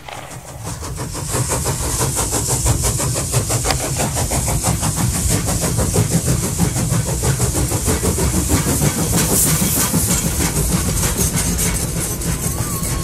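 Soundtrack sound design of fast, even mechanical pulsing over a steady low rumble and a high hiss, resembling a train running on rails.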